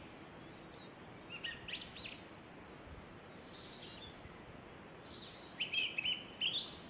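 A small songbird singing short bursts of quick, high chirps, the loudest and longest phrase near the end with a run of repeated notes.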